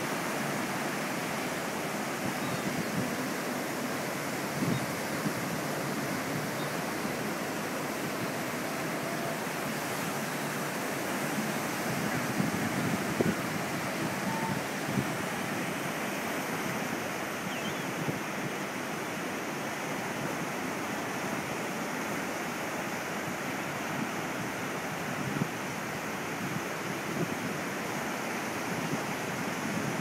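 Atlantic Ocean surf breaking and washing up a sandy beach, a steady rush of waves.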